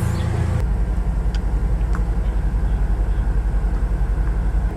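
Car running: a steady low rumble with a fast, even pulsing, its character changing about half a second in.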